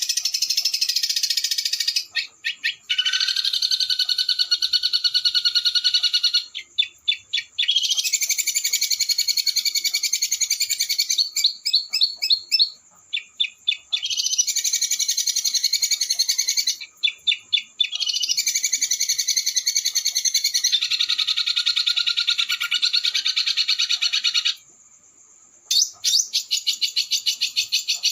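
A small songbird singing long, rapid trills of fast repeated harsh notes, broken by short stuttering series and brief pauses: a 'roll speed' masteran recording of the kind used to teach caged songbirds.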